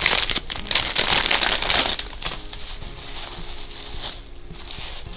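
Plastic packaging crinkling as a squishy toy is handled and unwrapped: a dense crackle for the first two seconds, then quieter rustling.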